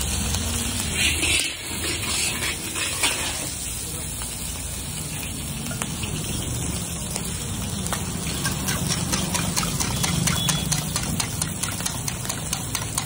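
Chopped food sizzling in a large iron wok while a steel ladle stirs and scrapes it, with many small clinks of metal on metal in the second half.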